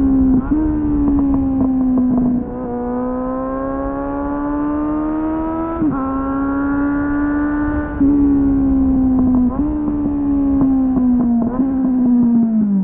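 Suzuki GSF 600 Bandit's inline-four engine through an aftermarket slip-on exhaust with a dB-killer, recorded onboard while riding. The engine note holds fairly steady under light throttle, climbing slowly a few times with small jumps in pitch, then drops away near the end as the bike slows.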